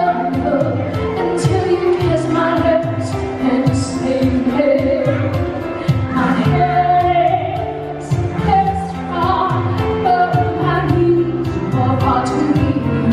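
A voice singing a pop ballad melody over a backing track with a steady beat, bass notes and cymbal ticks.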